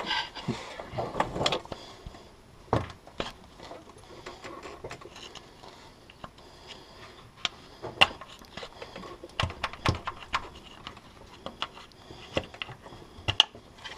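Irregular clicks, light knocks and metallic taps of hand tools as a screwdriver works at the rubber plug in the flywheel housing of a 24-valve Cummins diesel, the opening for the engine barring tool.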